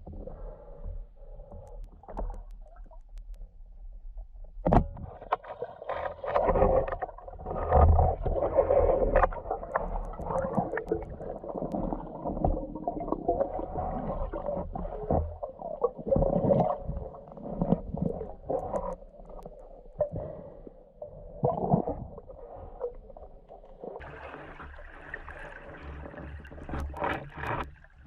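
Water sounds heard through an action camera's waterproof housing while spearfishing: gurgling with irregular knocks and scrapes as the diver moves. The sound changes abruptly near the end.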